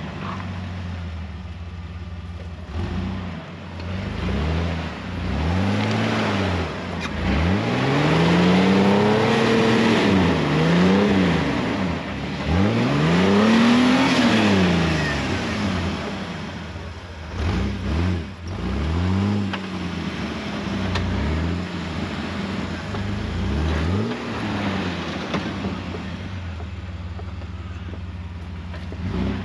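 Jeep TJ engine revving in repeated surges, its pitch rising and falling again and again, as it works up a rocky off-road climb; the surges are loudest and longest around the middle.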